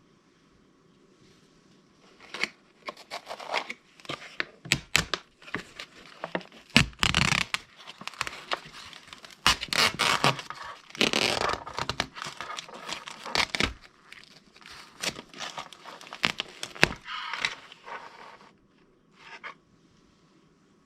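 Crinkly packaging being handled and torn, in irregular bursts of crackling and ripping that come in about two seconds in and stop shortly before the end.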